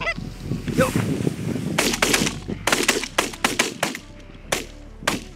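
Canada geese honking, then a rapid volley of about a dozen shotgun shots, most packed together between about two and four seconds in, with two more near the end.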